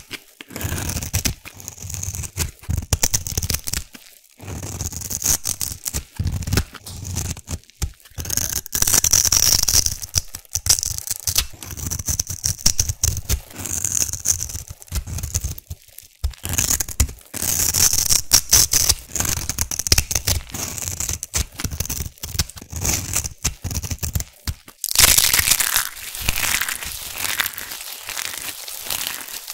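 Snap-off knife blade shaving thin curls off a block of black soap in repeated crisp scraping strokes. About 25 seconds in, the loose soap shavings are crushed and crumbled between the hands, giving a dense, continuous crackle.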